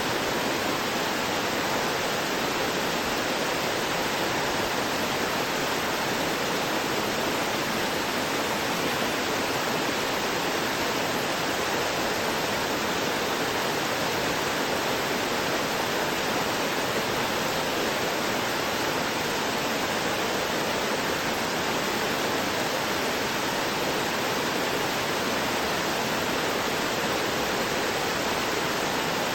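Small stream gurgling and rushing steadily over rocks.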